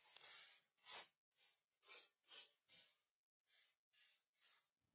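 Faint, quick puffs of air, about two a second with a short pause past the middle, as a smouldering tinder bundle is fanned into flame.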